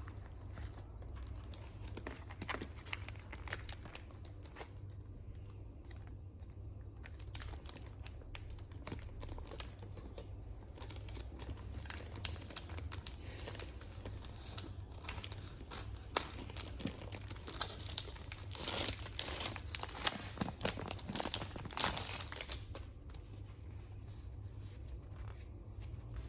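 Packaging being torn open and crinkled by hand: a scatter of sharp crackles that grows denser and louder for several seconds late on, over a low steady hum.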